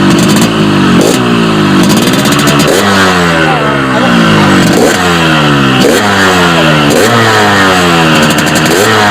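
Yamaha RX-King two-stroke single-cylinder motorcycle engine being blipped through a freshly gutted (bobok) muffler. The revs shoot up and fall back about once a second.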